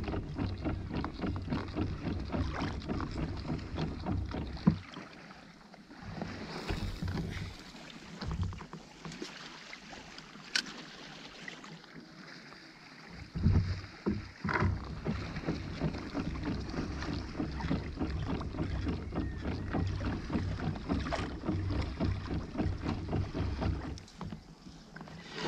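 Sea water splashing and rushing along a kayak's hull as the kayak moves, with a low rumble on the microphone. The noise drops away from about five to thirteen seconds in, and a few short knocks come near the middle.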